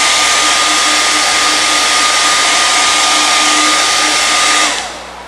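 Hair dryer blowing steadily with a high whine, drying contact cement on foam finger tubes. Near the end it is switched off and spins down.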